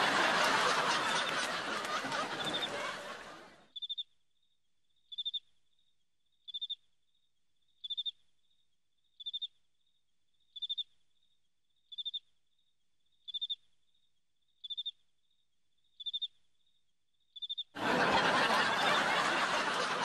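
Canned studio audience laughter that fades away in the first few seconds. Then a cricket chirps about eleven times, evenly spaced, one short high chirp every second and a half or so. Near the end the laughter swells up again.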